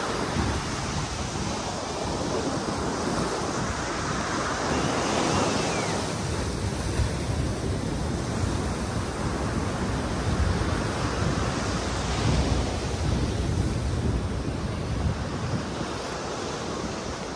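Ocean surf washing in against a rock jetty and sandy beach, a steady wash that swells and eases, with wind buffeting the microphone.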